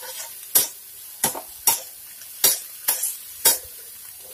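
Metal spatula scraping and tapping on a flat tawa while stir-frying chopped onion, tomato and garlic, with about six sharp strokes over a faint sizzle.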